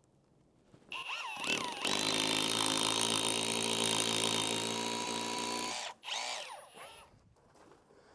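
SDS drill spinning up about a second in, then drilling steadily for about four seconds before it stops and runs down, boring a 6 mm fixing hole into the wall for the floodlight bracket.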